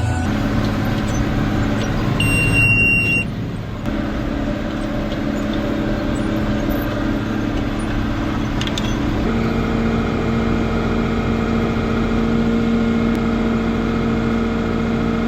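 Farm tractor engine running steadily under haying work. A short high-pitched beep sounds about two and a half seconds in, and the engine note shifts to a different steady pitch about nine seconds in.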